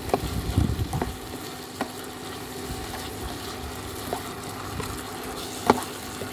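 Phak wan (sweet leaf) greens with garlic and chili sizzling in oil in a nonstick frying pan as a slotted spatula stirs and tosses them. A few sharp clacks of the spatula against the pan come through, the loudest near the end.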